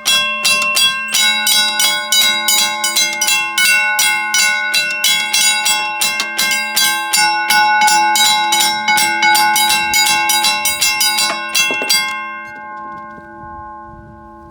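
Two mechanical railroad crossing bells ringing together, their electric strikers hitting the gongs in rapid, even strokes; the second bell joins about a second in. The striking stops about 12 seconds in and the gongs ring on, fading.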